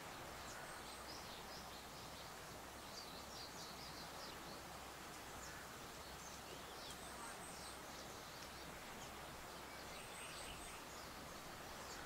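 Faint breeze rustling through tall grass as a steady hiss. Small birds give scattered short, high chirps throughout, with a quick run of very high notes about seven seconds in and again near eleven seconds.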